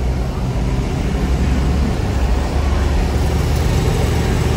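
Minibus engine and road noise heard from inside the cab while under way: a steady low rumble.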